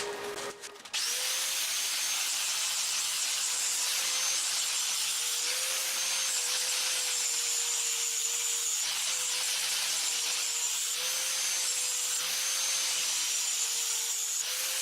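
Electric grinder starting about a second in and running steadily against the steel of a welded machete blade to shine it up, a high hiss over a motor hum that dips slightly now and then under load.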